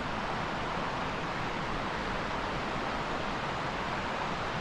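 Mountain stream rushing steadily over rocks, a constant even roar of water.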